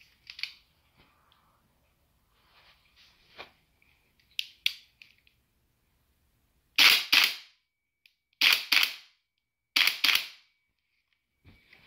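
GBLS GDR15 airsoft rifle's blowback action cycling: three loud, sharp double clacks, each pair about a third of a second apart, after a couple of lighter mechanical clicks.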